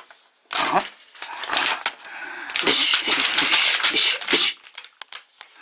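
Voices crying out in short, loud bursts without words, the longest and loudest outburst about halfway through, followed by a few light clicks near the end.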